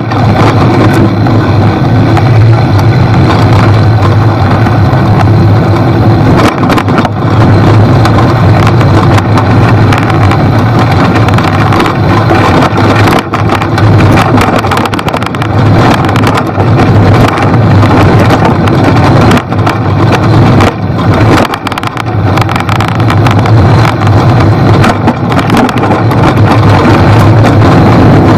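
Riding noise from a bicycle rolling downhill on a leaf-strewn dirt trail: a loud, constant low rumble of wind and tyre noise on the camera's microphone, broken by frequent irregular knocks and rattles as the bike goes over bumps.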